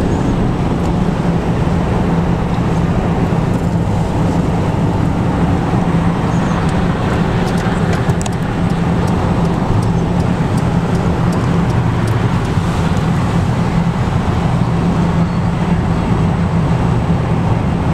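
Car driving at speed, heard from inside the cabin: a steady rumble of engine and tyre noise with a low hum.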